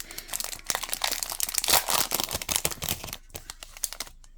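Foil trading-card pack wrapper crinkling and tearing as it is opened, a dense crackle that thins to a few scattered crackles after about three seconds.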